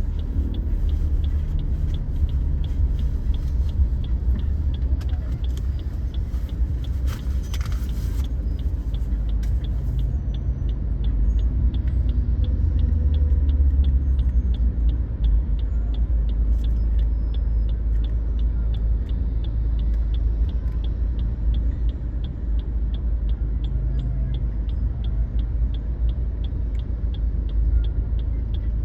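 Low, steady rumble of a car driving in slow traffic, heard from inside the cabin. A light, even ticking repeats a few times a second throughout.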